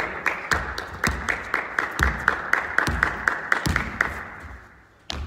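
Quick rhythmic hand clapping, about four claps a second, ringing in the echoing gym and fading out about four seconds in, with a few heavier thuds of the basketball among the claps.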